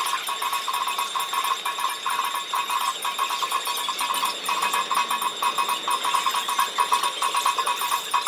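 Japanese railway level-crossing warning bell ringing, a rapid, steady run of electronic clangs.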